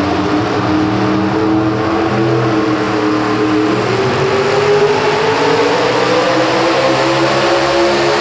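Light pro stock pulling truck's engine at full throttle under heavy load as it drags the weight-transfer sled. The pitch dips slightly about halfway through, then climbs steadily toward the end.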